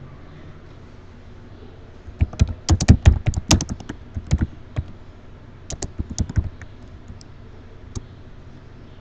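Typing on a computer keyboard: a fast run of keystrokes, a short pause, a second shorter run, then one last keystroke near the end.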